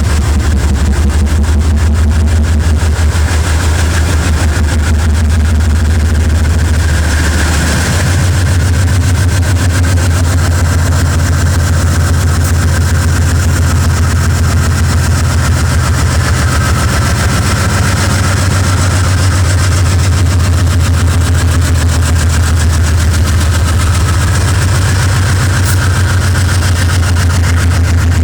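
GE 7FDL-16 sixteen-cylinder diesel engine of a locomotive starting a loaded freight train, running loud with a deep, throbbing rumble. About eight seconds in, the engine note steps up in pitch and holds there as the throttle is notched up.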